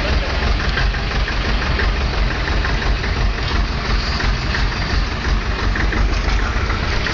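Tractor engine idling steadily, with a low, even throb.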